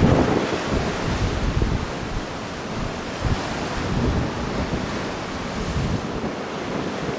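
Wind buffeting the microphone as a gusty low rumble, strongest in the first couple of seconds, over the wash of choppy river water.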